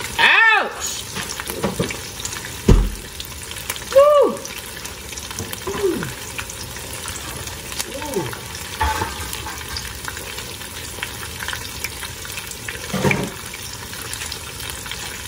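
Chicken tacos frying in shallow oil in a skillet: a steady sizzle. A few short pitched sounds that swoop up and down come over it, the loudest near the start and about four seconds in, with a low thump a little before three seconds.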